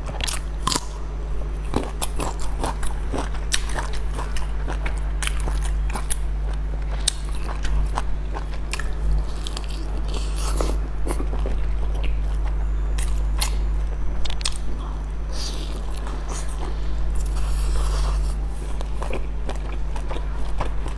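Eating a large stuffed bun dipped in chili sauce: wet bites, chewing and lip smacks with many sharp mouth clicks, over a steady low hum.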